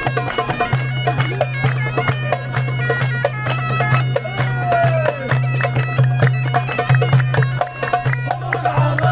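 Bagpipe playing a fast Palestinian folk dance tune over its steady low drone, with a frame drum beating and hands clapping along.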